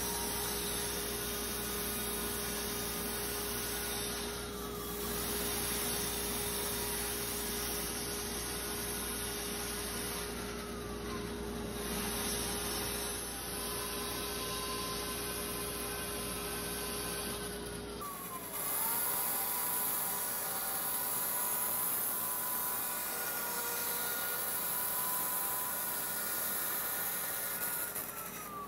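Bandsaw running and cutting through an inch-and-a-half-thick ash board: a steady motor hum under a whine from the blade that drops in pitch several times.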